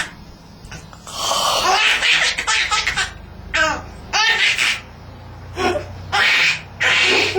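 Baby laughing in short repeated bursts, with a long breathy sound lasting about two seconds near the start.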